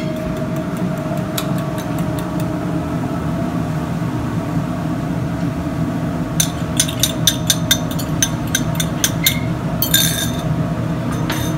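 Steady hum of kitchen fans. From about six seconds in, a quick run of light clinks as a utensil knocks against the cup of beaten eggs being emptied into the omelette pan.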